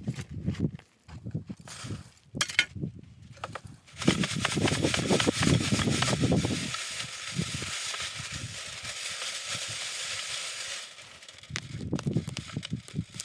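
Dirt and gravel rattling and scraping across the wire-mesh screen of a wooden shaker box as it is shaken back and forth, sifting the fines out to leave the rocks. A few scattered knocks come first, then a continuous gritty rattle from about four seconds in until about eleven seconds, with a few more knocks near the end.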